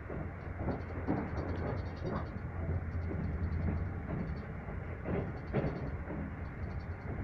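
Keisei Evening Liner limited express heard from inside the passenger cabin while running: a steady low hum and rumble of wheels on rail, with a few louder clacks, the loudest about five seconds in.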